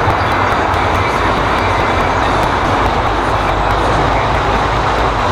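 Truck engine running steadily while hauling a heavy load.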